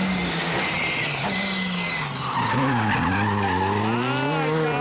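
Škoda Fabia R5 rally car's 1.6-litre turbocharged four-cylinder engine coming off the throttle into a hairpin, with a loud hiss of tyre noise in the first half. The engine pitch drops about three seconds in, then rises again as the car accelerates out of the bend.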